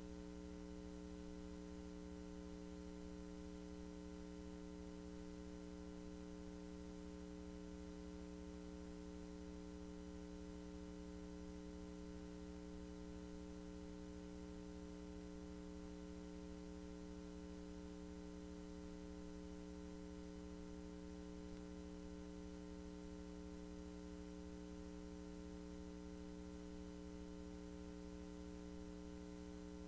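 Steady electrical mains hum, a low buzz of several fixed tones that never changes, over faint hiss.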